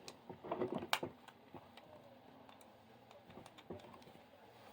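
Light clicks and handling noises of a wall light switch and its wiring being worked on by hand, with one sharp click about a second in and fainter ticks after it.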